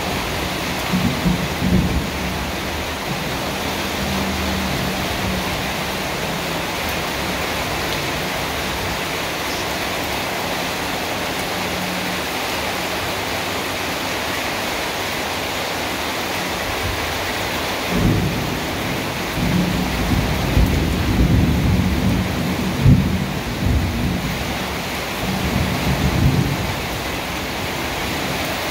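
Steady heavy rain falling, with thunder rumbling low briefly near the start and again in a longer rolling stretch for several seconds about two-thirds of the way in.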